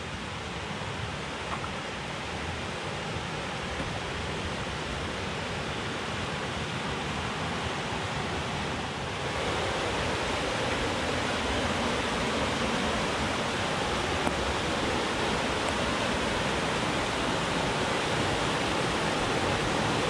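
Rushing white water of a river cascade over rocks, a steady wash that grows louder, stepping up about nine seconds in.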